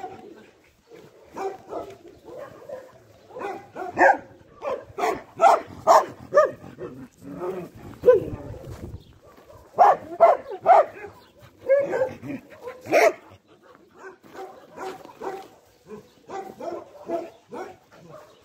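Several dogs barking, short barks coming in irregular bursts, some overlapping, with the loudest runs near the middle.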